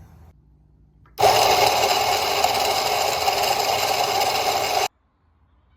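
Rancilio Rocky burr coffee grinder switched on about a second in, its motor running with a steady whine as it grinds coffee beans for espresso, then cut off suddenly about a second before the end.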